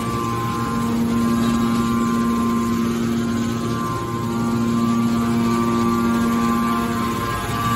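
Hydraulic can baler running: its motor and hydraulic pump give a steady hum with a held tone, briefly weakening about four seconds in.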